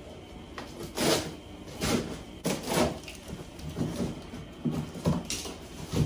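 Large cardboard box holding a 26-gallon air compressor being tilted and walked across a garage floor: a string of irregular scrapes and bumps.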